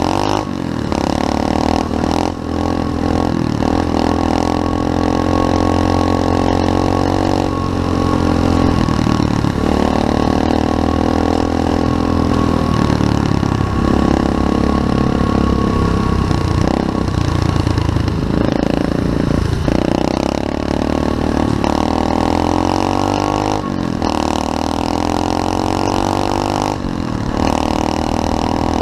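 SSR 125cc pit bike's single-cylinder four-stroke engine under way, its pitch climbing and falling again and again as the throttle is worked, with brief drops in revs a few times along the way.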